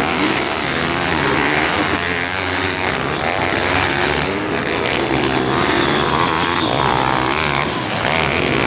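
Several small pit bike engines racing, revving up and down with overlapping rising and falling pitch as they climb through the gears and ease off.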